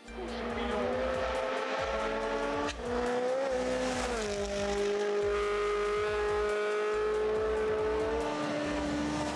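Hyundai i20 N Rally1 car's turbocharged four-cylinder engine running hard at high revs, its pitch climbing gradually. About four seconds in the pitch drops to a lower note, holds steady, and steps down again near the end.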